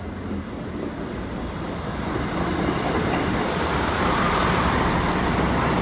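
Diesel multiple-unit passenger train approaching, its engine hum and wheel rumble growing steadily louder.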